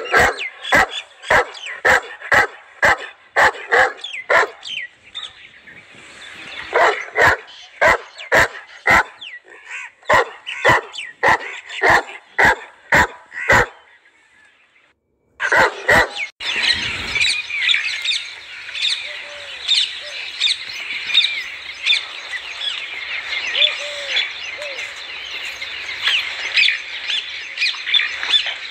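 A young Saint Bernard barking over and over, about two barks a second, with a short pause about five seconds in, stopping about fourteen seconds in. After a brief silence, a dense chorus of chirping birds fills the rest.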